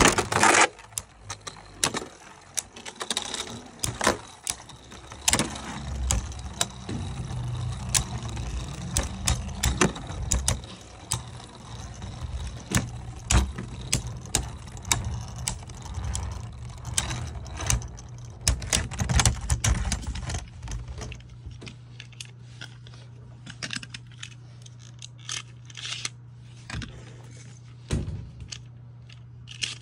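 Two Beyblade Burst spinning tops clashing in a plastic stadium, with many rapid clicks and knocks. The hits come thickly for about twenty seconds, then thin out to scattered knocks as the tops slow down.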